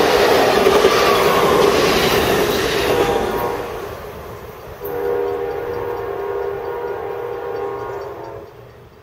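Superliner passenger cars rolling past with wheel-on-rail clatter, fading as the train pulls away. About five seconds in, the distant lead P42DC locomotive's Nathan K5LA horn sounds one long chord as a horn salute, then fades out near the end.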